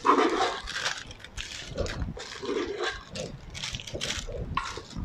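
Plastic piping bag crinkling and rustling in irregular bursts as raspberry meringue is scooped into it from a stainless steel mixing bowl.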